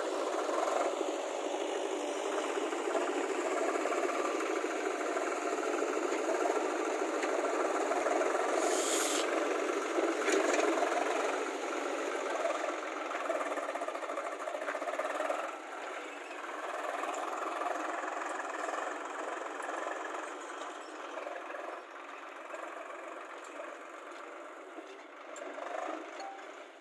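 Diesel engines of a JCB backhoe loader and a farm tractor running steadily with a rattling clatter, with a short sharp high-pitched noise about a third of the way in. The noise drops in loudness a little past halfway.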